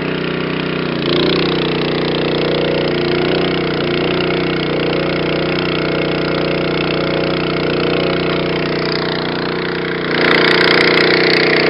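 The Honda gas engine of a Niftylift TM34G boom lift runs steadily under hydraulic load as the boom is raised and slewed. Its tone shifts about a second in as the load changes, and it gets louder near the end.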